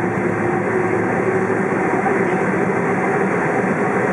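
Steady cabin noise inside a Boeing 767-400ER taxiing, its GE CF6-80C2 turbofans running at low taxi power: an even rush with a steady hum through it.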